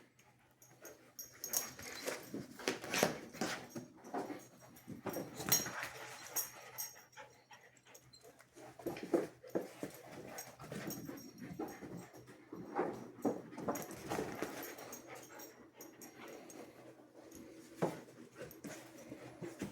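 Two huskies playing, with panting, small whimpers and irregular scuffling knocks.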